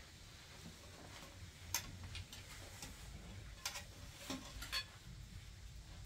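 A few scattered light clicks and taps, half a second to a second apart, over a faint low hum.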